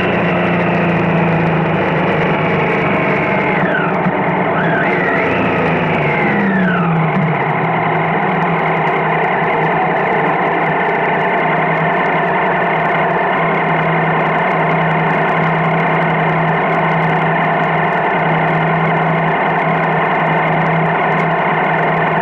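Vehicle engine running as it slows, its pitch falling over the first seven seconds, then idling steadily while stopped in traffic. A few brief whistling tones glide up and down between about four and seven seconds in.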